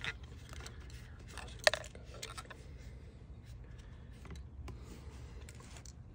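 Light clicks and taps of hard plastic being handled: a chain-oil bottle and the pole saw's plastic oil tank and cap, with one sharper click about two seconds in.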